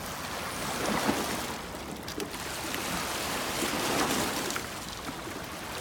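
Columbia River water washing and lapping against the shoreline rocks, a steady rushing noise that swells a little now and then.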